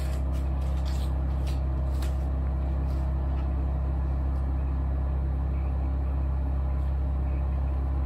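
Denbig portable air conditioner running on its low fan setting: a steady low hum and drone that does not change.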